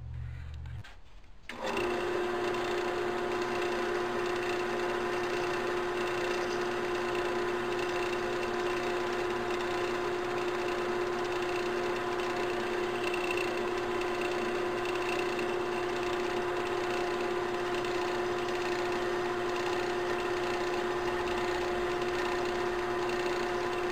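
Central Machinery mini metal lathe switched on about a second and a half in, then running steadily with a constant motor hum, while a small hacksaw is held against the spinning brass tube to part off a ring.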